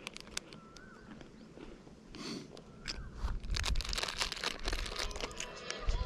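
Mountain bike rolling over a rough, rocky dirt trail: tyres crunching on gravel and the bike rattling in irregular clicks, getting busier and louder from about halfway in.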